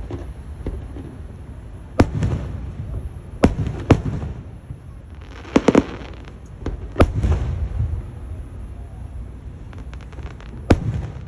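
Fireworks going off: a series of sharp bangs, about 2, 3.5 and 4 seconds in, a quick cluster of cracks midway, then single bangs about 7 and 11 seconds in, each trailing off in an echo.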